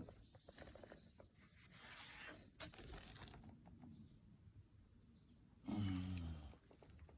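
Quiet outdoor background with a steady high-pitched insect drone. About six seconds in comes a short, low vocal sound that falls in pitch.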